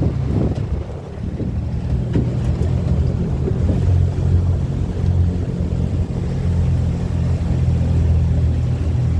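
Vehicle engine running with a steady low drone while driving.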